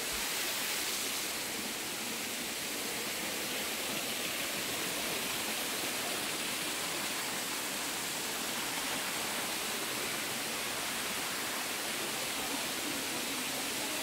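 A waterfall and its stream rushing steadily: an even wash of water noise without a break.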